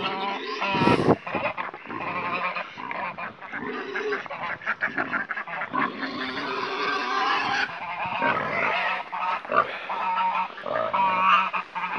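Pomeranian geese honking, with many calls overlapping continuously.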